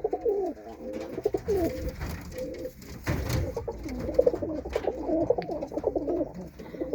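Several Birmingham Roller pigeons cooing in the loft, overlapping continuous coos with a brief rustle about three seconds in.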